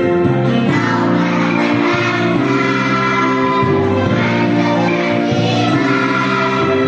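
A choir singing a song together, with held notes that change every second or so.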